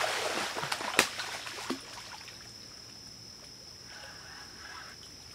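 Splashing in shallow water from a hooked catfish being played close to the bank, busiest in the first two seconds with a sharp slap about a second in and a smaller splash around four seconds. A steady high whine runs underneath.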